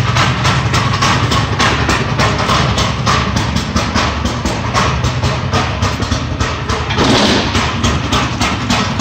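Small single-cylinder engine of a motorised chuck wagon cart running while it is driven, with a rapid, uneven pulsing. A brief rush of noise comes about seven seconds in.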